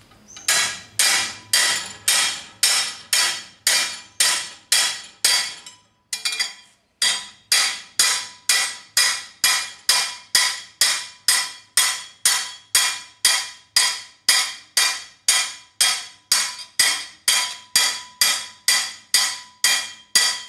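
Hammer blows on a steel bracket clamped in a bench vise, struck about twice a second with a brief pause partway through, each blow ringing. The steel is being hammered over to bend it.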